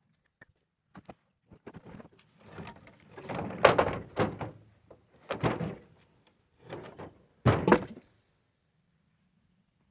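A series of dull wooden thunks and knocks, about seven of them with rustling between, as pieces of the cut limb are handled and dropped. The loudest come a few seconds in and near the end.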